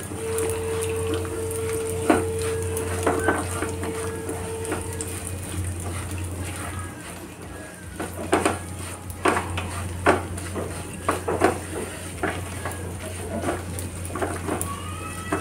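A flat spatula stirring and scraping crushed almonds frying in ghee in a nonstick pan, with a low sizzle. Scrapes come more often from about halfway through, over a steady low hum.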